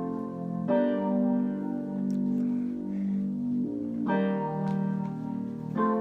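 Music: a keyboard playing sustained chords, a new chord struck every one to three seconds.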